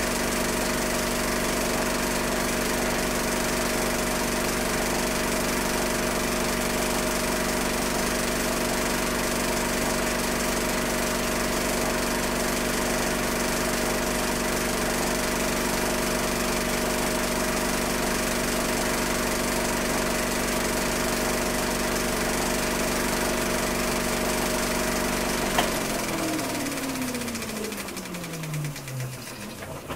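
Home-movie film projector running with a steady mechanical hum. Near the end it is switched off with a click, and the motor winds down, its pitch falling as the film runs out.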